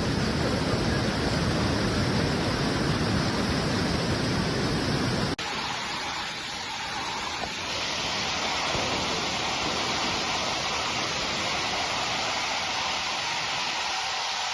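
Loud, steady rushing of water in heavy flow. About five seconds in it cuts abruptly to a quieter, hissier water noise, which carries on to the end.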